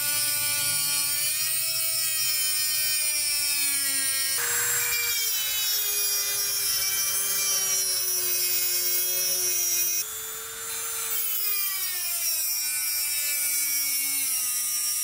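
A hand-held rotary tool with an abrasive cut-off disc grinding into the eye of a rusty steel hammer head. Its motor whine is high and steady, with a pitch that sags slowly under load. The pitch jumps abruptly about four seconds in and again about ten seconds in.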